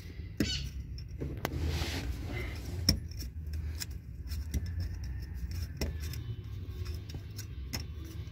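Scattered light clicks and metallic taps from handling a car's 12 V cigarette-lighter socket and its metal parts, over a steady low rumble.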